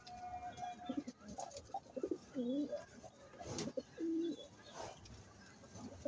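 Domestic pigeons cooing: a string of low coos, some wavering up and down, one held flat. A short sharp noise comes about three and a half seconds in.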